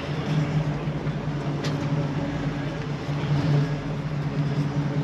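A car engine running at low speed with a steady low hum, and a single short sharp click about a second and a half in.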